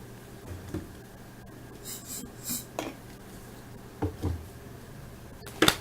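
Trading cards and their wrapper being handled on a table: a few brief rustles and soft taps, with a sharper knock near the end.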